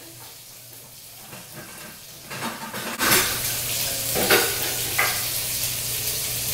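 Quiet kitchen at first. About three seconds in, a steady hissing rush starts suddenly and carries on, with a few sharp metal clanks of a cooking pot.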